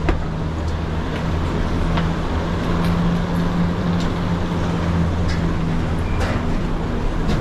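Detachable chairlift station machinery running with a steady low hum as chairs pass through the station, with a few sharp clacks scattered through it.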